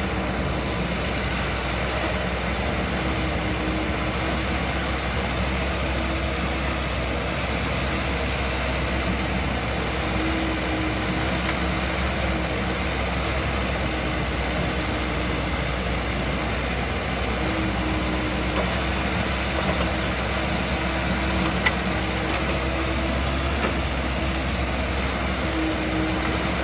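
Komatsu hydraulic excavator's diesel engine running steadily as the machine digs, its note swelling slightly now and then under load. One brief knock sounds late on.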